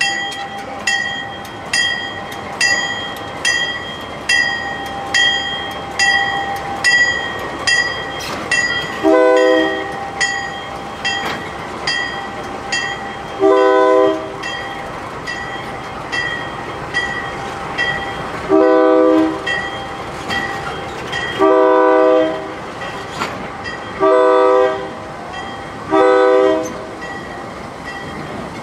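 Locomotive bell ringing steadily about once a second on GE B32-8 diesel No. 558 as it moves up to a road crossing. From about nine seconds in, its multi-note air horn sounds six short blasts, spaced more closely toward the end.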